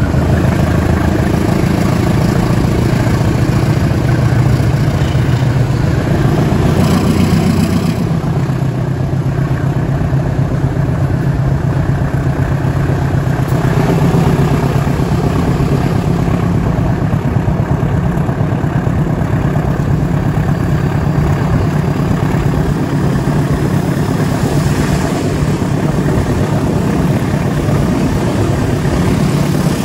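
GE CC203 diesel-electric locomotive's V8 diesel engine running hard under load as the train climbs a mountain grade. The engine note shifts about eight seconds in, then holds steady.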